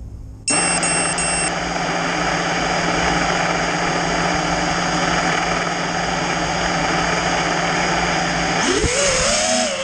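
A 6S FPV quadcopter's motors and propellers start up suddenly about half a second in and run with a steady whir and a high electronic whine. About 9 s in, the pitch rises quickly as the throttle goes up for takeoff.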